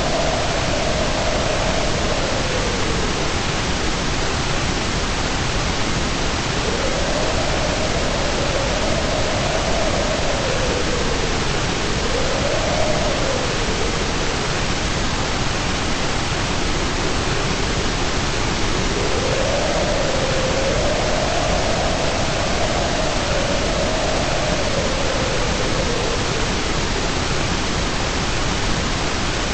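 Steady hiss of white noise for relaxation, with a faint tone in it that slowly wavers up and down every few seconds.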